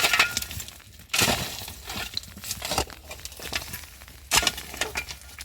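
A series of sharp clattering knocks, four strong ones a second or more apart, with quieter rustling between them.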